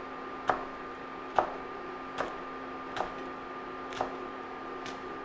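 Chef's knife chopping a rolled stack of fresh basil leaves on a plastic cutting mat: five sharp knocks of the blade about a second apart, over a steady hum.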